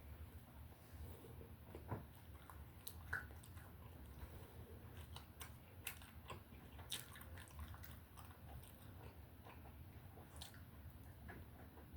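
A person chewing and biting into a chili dog: faint, irregular mouth clicks over a low steady hum.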